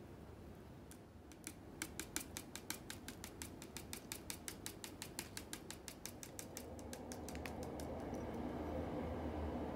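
A hand grinder being turned over a plate, giving a fast, even clicking of about five clicks a second that stops near the end. A steady low rumble grows louder over the last couple of seconds.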